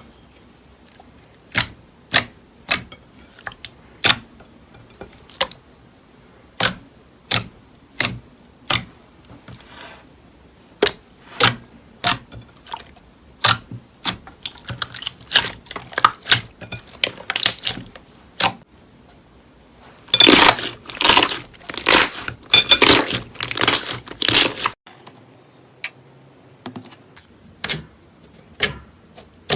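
Slime being squeezed and poked, making sharp popping clicks as air pockets burst: scattered pops at first, then a dense run of louder pops about two-thirds of the way through before they thin out again.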